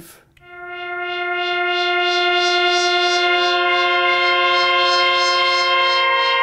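Web synthesizer playing an 80s-style pad from sawtooth oscillators in near-unison through a filter given slow movement by a triangle LFO, with reverb. A held note swells in slowly on a slow attack, a second, higher note joins about three seconds in, and the upper tones shimmer in a regular, gentle pulse.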